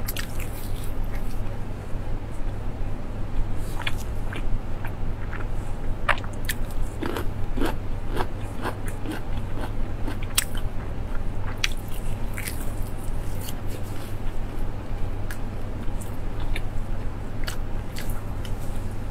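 Close-miked eating: a person biting and chewing breaded fried food from a skewer, with scattered sharp clicks as it is chewed. A steady low hum runs underneath.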